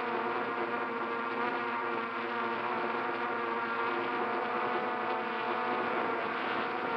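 Electric motors and propellers of a hovering multirotor drone, heard through the drone's own onboard camera as a steady buzz of several even tones.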